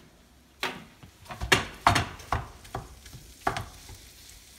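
Wooden spoon stirring and breaking up raw ground beef in a frying pan with sautéed vegetables: a run of irregular scrapes against the pan, starting about half a second in, over a faint sizzle.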